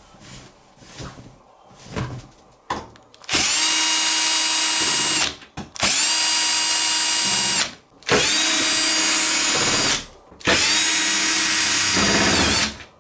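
Cordless drill-driver backing screws out of a wooden baby crib to take it apart: four runs of about two seconds each, a steady whine with short pauses between. Before the first run there are a few seconds of soft handling and rustling of the fabric bumper.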